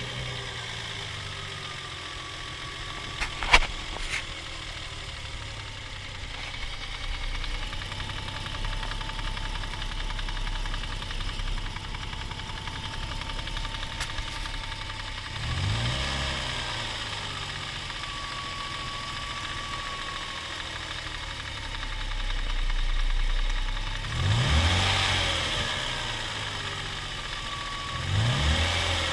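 Toyota 1G-FE inline-six engine running warm at idle, blipped up and dropping back three times, with a sharp click about three and a half seconds in. The engine has a foreign knock from under the timing cover at the front, which the owner suspects is the VVT-i gear.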